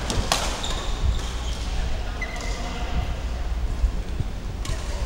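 Badminton racket striking a shuttlecock with a sharp crack about a third of a second in, followed by short high squeaks of shoes on the court floor. A steady low hum runs underneath.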